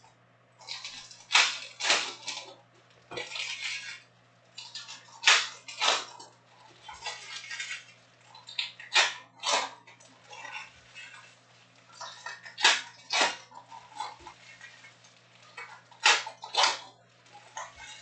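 Foil wrappers of Topps Chrome trading-card packs crinkling and tearing as packs are ripped open one after another. Sharp crackles come in pairs about every three and a half seconds, with softer rustling between them.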